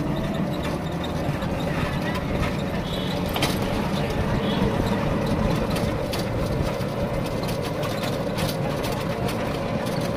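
A small vehicle running along a road, heard from on board: a steady whine over a low running noise, with scattered rattles and knocks.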